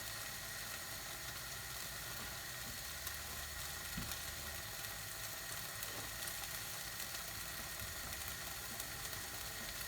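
Chicken korma curry sizzling softly in the pan: a steady, even hiss with a few faint ticks, from a thickening sauce that has begun to stick.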